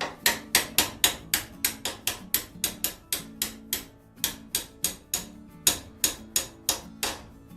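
Hammer tapping a part onto an angle grinder's shaft: a long run of even, sharp blows, about three a second, with a short pause near the middle.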